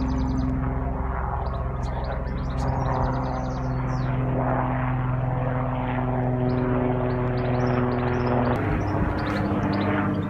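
A steady engine drone whose pitch shifts about eight and a half seconds in, with short bird chirps over it.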